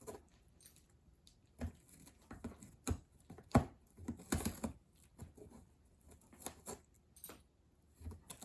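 A cat biting and chewing cardboard, tearing it with its teeth in irregular crunches and rips, the loudest about three and a half seconds in.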